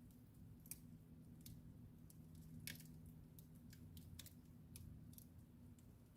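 Wood fire in a fireplace crackling faintly: irregular sharp pops and ticks, the loudest a little under halfway through, over a low steady hum.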